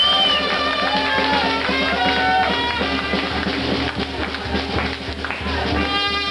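A small band plays live, with melody lines that glide between notes over a steady accompaniment.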